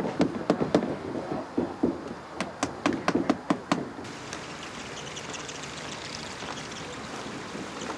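Quick, light hammer taps, several a second, stopping about four seconds in. A faint steady hiss with scattered light ticks follows.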